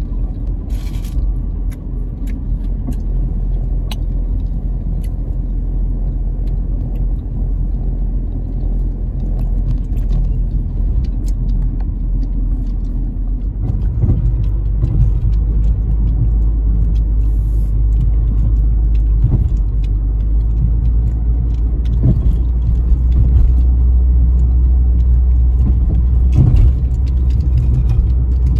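Steady low rumble of a car driving, engine and tyres on the road heard from inside the cabin, with scattered small knocks. The rumble grows louder about halfway through.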